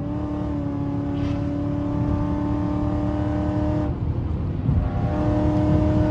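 Ford Mustang's 5.0 V8 heard from inside the cabin, held at one steady high pitch at speed over road rumble. The engine note drops away about four seconds in and comes back on about a second later at the same pitch.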